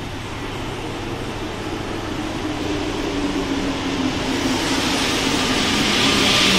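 Rubber-tyred MPL 85 metro train moving alongside the platform and growing steadily louder as it comes close. A low hum falls in pitch while a hiss builds up.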